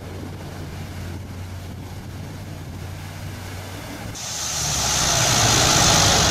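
Heavy truck engine running with a steady low hum; about four seconds in, a loud rushing hiss sets in and swells.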